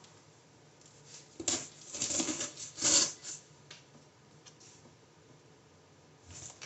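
A knife slitting the packing tape on a cardboard box: a few short scratchy rasps between about a second and a half and three and a half seconds in, then only faint light scrapes.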